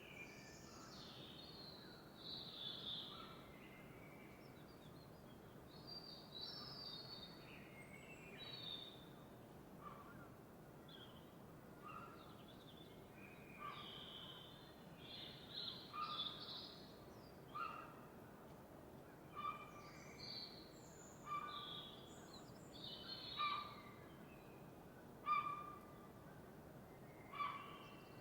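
Birds singing and calling at dawn: many short chirps and whistles over a faint steady hiss. From about halfway through, a sharper call repeats roughly every two seconds and grows louder.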